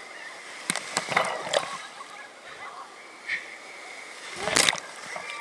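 Wave-pool water splashing and sloshing as waves break around the swimmers, with a few sharp splashes in the first second and a half and a loud splash about four and a half seconds in.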